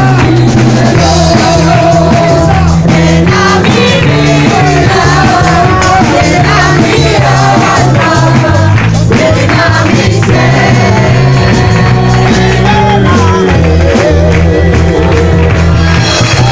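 Loud live worship music with a group singing over a steady bass line.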